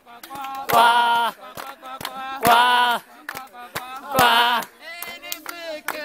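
A group of young men chanting a song together outdoors, with loud shouted phrases about every second and a half and handclaps in between.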